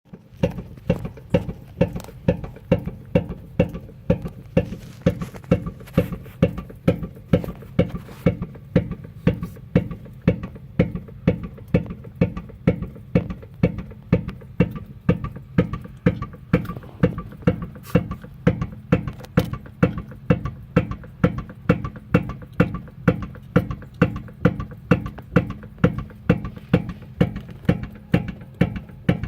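Rear driver-side suspension of an Infiniti G37X knocking each time the trunk is pushed down, about two knocks a second in an even rhythm, each often followed by a softer one. The cause turned out to be a loose bolt at the lower end of the shock absorber.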